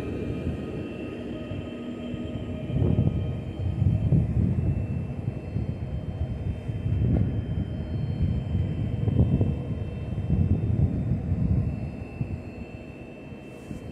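Electric multiple unit drawing to a stop and then standing at the platform: a low rumble that swells and fades several times, with faint steady high whines from its electrical equipment.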